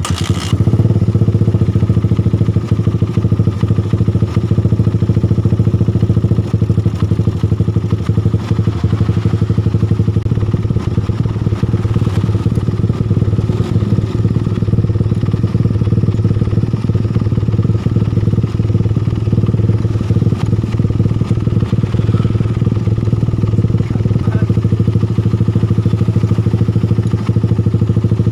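Suzuki Satria FU's single-cylinder four-stroke engine running steadily while its bolt-type replacement cam chain tensioner is adjusted by hand. The adjustment is meant to cure a rough clattering ('klotok-klotok') around the cylinder head, caused by the broken original cam chain tensioner.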